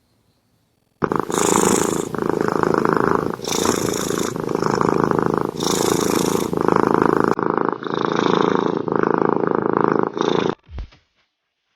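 Domestic cat purring loudly in alternating phases of about a second each, as it breathes in and out. It stops suddenly near the end, followed by a brief low thump.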